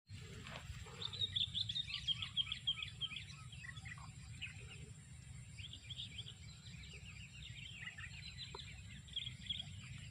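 A flock of whistling ducks calling: rapid, high twittering whistles in dense runs, one in the first three seconds and another from about five and a half seconds on, over a low steady hum.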